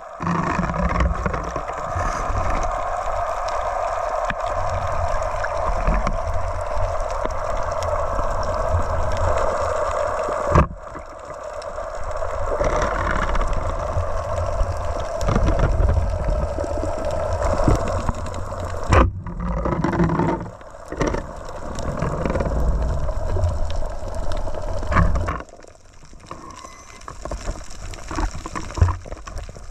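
Underwater sound picked up by a diver's camera on a night spearfishing dive: a steady rush of water with a low rumble and scattered clicks. It breaks off sharply twice and is quieter for the last few seconds.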